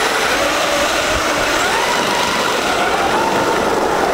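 Electric RC car driving hard, its motor whining and the pitch rising and falling with the throttle, over a steady rush of noise.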